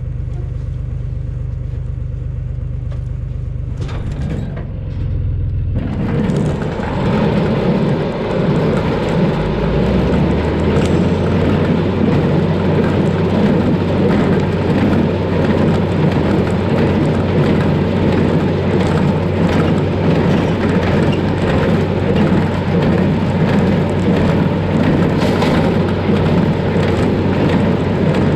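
Tractor engine running steadily, then about six seconds in a loud, dense mechanical noise sets in over it and carries on: the PTO-driven straw baler started up and running.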